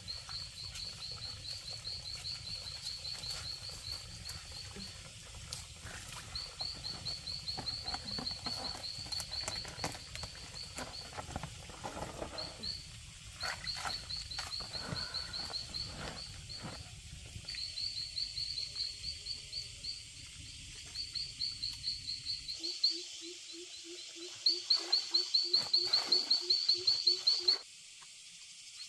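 Clothes being hand-washed in a plastic basin of water, with splashing, wet rubbing and a low steady rush of water. Over it, an animal gives a rapid, high, pulsing call in repeated trains of a few seconds. Near the end the water sound stops and a louder pulsing call with a low note comes in for a few seconds.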